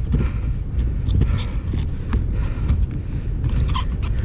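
Wind buffeting the microphone on a pedal kayak, a steady low rumble, with scattered light clicks and knocks.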